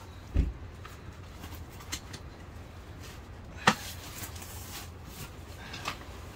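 A dull thump near the start, then a few sharp knocks and clicks, the loudest about halfway through, as camping gear is handled.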